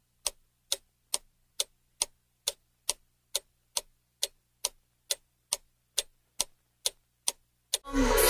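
Clock ticking, evenly spaced at about two ticks a second: a countdown-timer sound effect for guessing. Pop music comes in right at the end.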